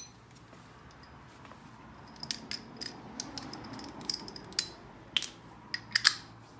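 Scattered light metallic clicks and clinks of hand tools being handled on the engine's crank-bolt job, irregular and spaced out, starting about two seconds in.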